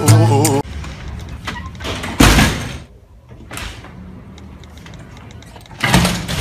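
A hip-hop song cuts off, followed by a loud short noisy burst about two seconds in and a weaker one later; near the end a metal lever door handle and latch are worked, a loud rattling clunk of door hardware.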